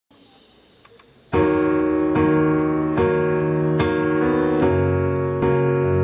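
Piano music begins about a second in after faint room tone: sustained chords, with a new chord struck about every second.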